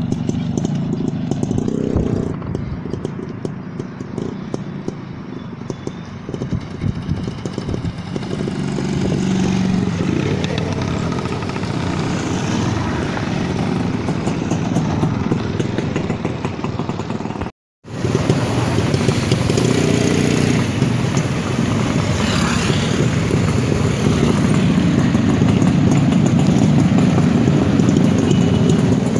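Motorcycle engines running steadily as the bikes ride along the road. A brief silence about two-thirds of the way in, after which the steady drone of several motorcycles riding together carries on.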